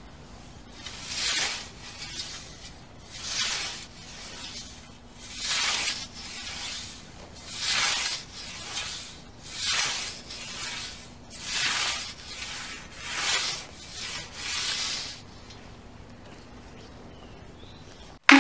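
Scythe blade swishing through lawn grass in steady mowing strokes, a loud cutting swish about every two seconds with softer swishes between. The strokes stop a few seconds before the end.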